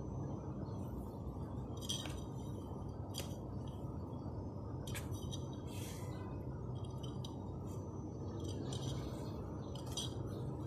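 Scattered light clinks and taps, like glass or crockery, over a steady low hum.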